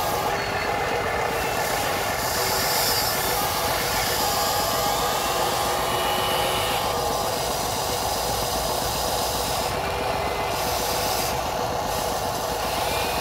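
Electric motors and gear drives of a Huina 580 RC excavator whirring steadily as it works its arm, bucket and swing. The whir shifts in tone a few times as different functions run.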